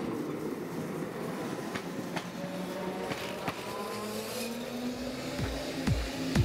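Steady rumble of a running vehicle with a few sharp clicks. About five seconds in, an electronic music kick drum beat starts at about two beats a second.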